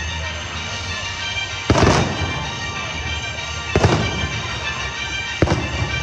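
Fireworks bursting three times, about two seconds apart, with music playing underneath.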